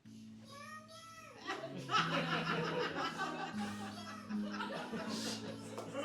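Music with sustained low held notes that shift to new pitches a few times, mixed with laughter.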